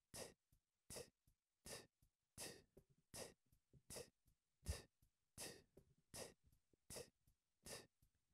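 Faint, short breathy exhalations into a microphone, evenly timed about one every three-quarters of a second to make a soft rhythmic pulse.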